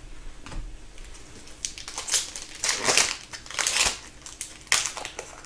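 Foil wrapper of an Upper Deck hockey card pack crinkling as it is pulled open by hand, in four or so separate rustles over a few seconds.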